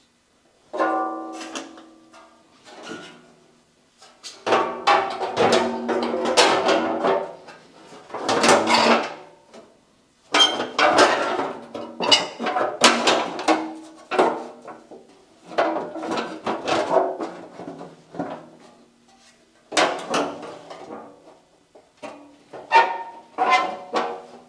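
A garden tractor's metal fender being wrestled into place, with irregular clunks and scrapes against the frame, each clunk followed by a brief ringing of the sheet metal.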